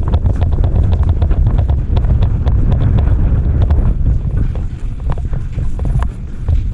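Running footfalls, with wind buffeting the microphone as a heavy low rumble and many irregular sharp clicks throughout.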